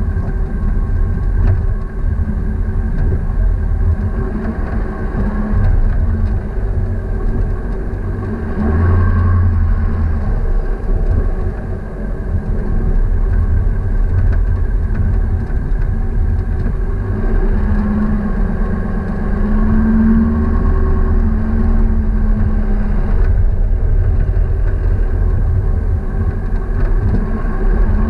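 A motor vehicle's engine running steadily, mostly low-pitched, its pitch shifting a little now and then.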